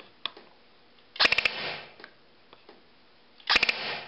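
Battery-powered airsoft Galil replica (electric gearbox, spring-driven piston) firing BBs through a chronograph twice, about two seconds apart. Each shot is a quick rattle of a few sharp cracks.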